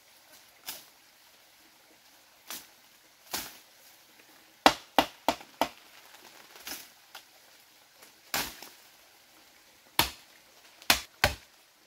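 Machete chopping at bamboo: irregular sharp strikes, some in quick runs of three or four.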